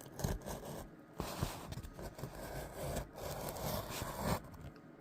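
A knife blade sawing and scraping through a cardboard box, in long rasping strokes with short pauses between them.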